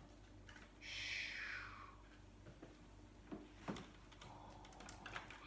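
A child's breathy whoosh, about a second long near the start, followed by a few light plastic clicks and knocks as a LEGO Star Wars shuttle is handled and set down on a LEGO tower.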